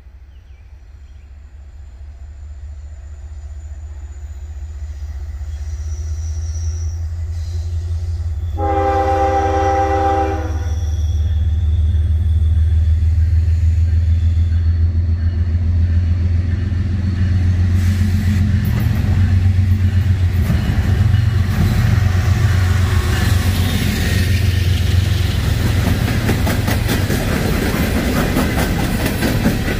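Norfolk Southern diesel freight train approaching, its low locomotive rumble growing steadily louder; about nine seconds in the locomotive horn sounds one blast of about two seconds. The train then passes close, with rapid wheel clicks on the rails in the last third.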